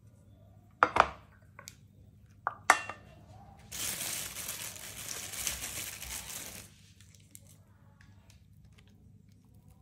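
Several sharp knocks and clinks of kitchenware, the loudest about a second in and just before three seconds in, then about three seconds of crinkling.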